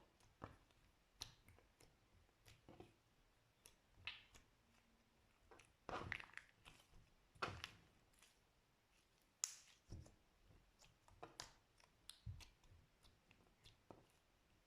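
Slime being squeezed and pressed by hand, giving quiet, irregular little clicks, pops and crackly squelches, with a longer crackling squish about six seconds in and again a moment later.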